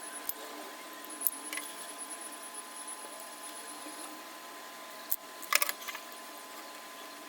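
Quiet room tone with a steady faint electrical hum, broken by a few small clicks and taps from hands handling the work, with a short cluster of them about five and a half seconds in.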